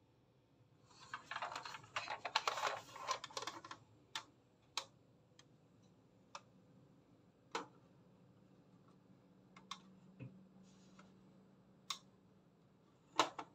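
Hands handling a plastic toy bus model: about three seconds of dense clicking and rustling, then single sharp clicks every second or two.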